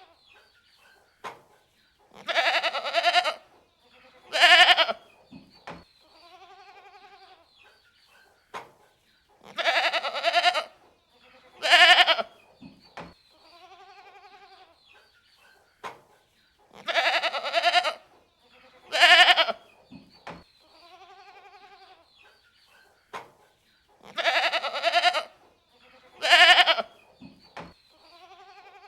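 Goats bleating: a loud, drawn-out bleat followed by a short, sharp one, with fainter bleats in between. The same sequence repeats about every seven seconds, like a looped recording.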